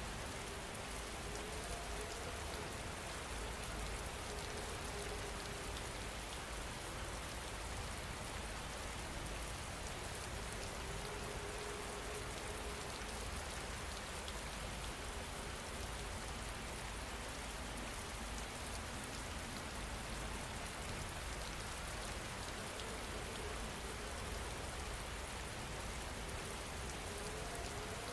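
Steady rain falling, an even hiss at a constant level, with a faint wavering tone that comes and goes.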